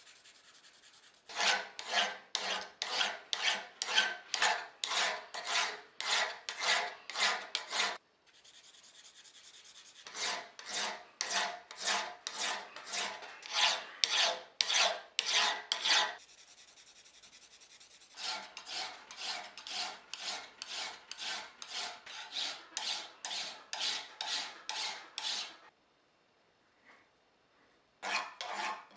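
Hand file rasping back and forth across the steel head of a ball-peen (machinist) hammer clamped in a vise, about two to three strokes a second. The filing comes in three runs with short pauses between them and a brief lull near the end before it starts again.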